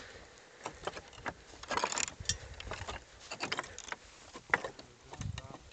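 Footsteps on loose, flat rock scree: irregular clinks and clatters of stone slabs shifting underfoot, with a low thump near the end.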